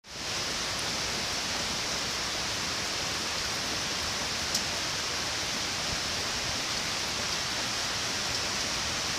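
Steady rain falling in full force, an even hiss of many drops, with one sharp tap about halfway through.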